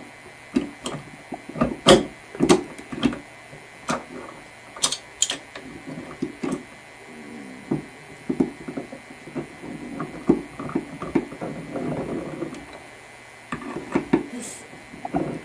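Channel lock pliers being adjusted and fitted on a faucet aerator: a string of irregular metal clicks and clacks.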